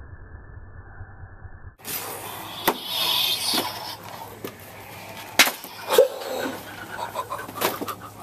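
Boxed plastic toy lightsabers striking each other in a mock duel: several sharp knocks and taps, the loudest two about five and six seconds in. The first two seconds are muffled with a low hum.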